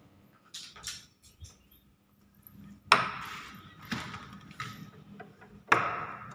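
A door's metal latch being worked as a wooden door is shut: a sharp metallic clank with a short ring about three seconds in, a few lighter knocks, and another loud clank near the end.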